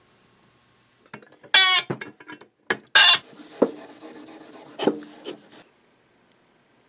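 Hand tools scraping and clattering against metal in a series of short bursts, loudest twice in the first half, then stopping about two-thirds of the way through.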